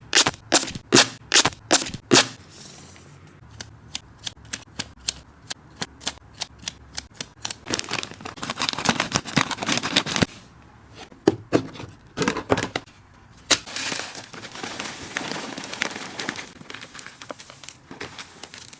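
Hamster snack packaging and storage containers being handled: about six sharp clicks or snaps in the first two seconds, then a run of lighter ticks. After that comes crinkling plastic, more sharp snaps and rustling.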